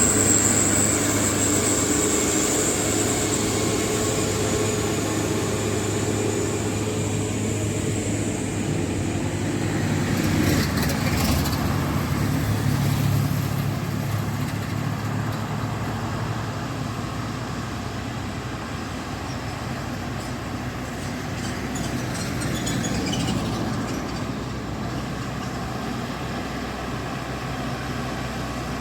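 Truck diesel engine running steadily with a low hum, louder in the first dozen seconds and easing off later. A high thin whine fades out about eight seconds in.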